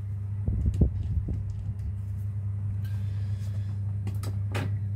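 A steady low hum, with a few light clicks and taps about a second in and again near the end.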